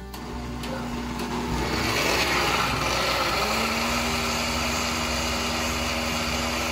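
Countertop blender running, puréeing roasted poblano chiles with evaporated milk into a sauce. The sound builds over the first two seconds as the blades catch the load, then holds steady with a motor hum.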